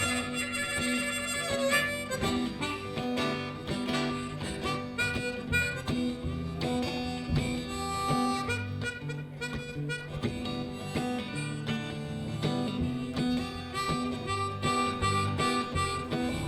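Live band playing an instrumental break between sung verses: a lead melody of held notes over guitar, a steady bass line and a beat.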